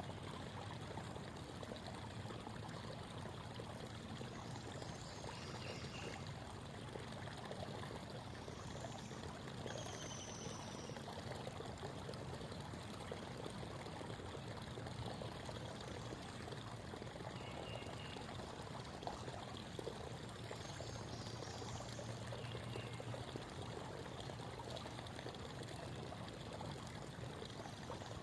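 Creek water babbling steadily over stones, with a few faint, brief bird calls high above the water sound.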